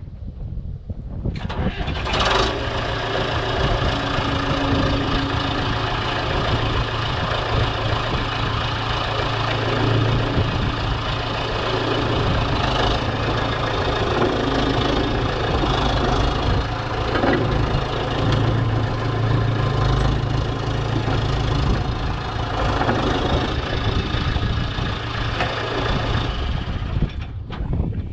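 John Deere 550G crawler dozer's diesel engine running steadily, test-run after a final drive replacement. It comes on about a second in and drops away near the end.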